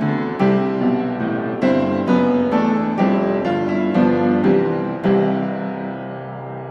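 Background music: a melody of sharply struck notes, ending on a chord about five seconds in that rings on and slowly fades.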